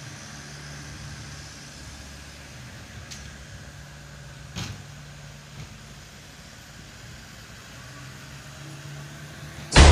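Dump truck diesel engine idling with a steady low hum, with a couple of faint knocks. Loud music cuts in suddenly at the very end.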